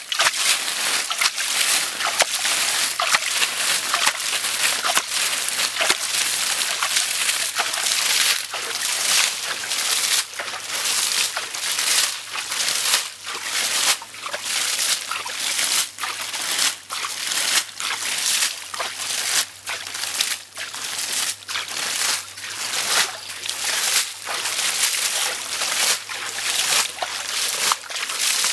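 Footsteps sloshing through shallow muddy water and rustling over dry leaf litter, a steady run of splashy, crunchy steps about one or two a second.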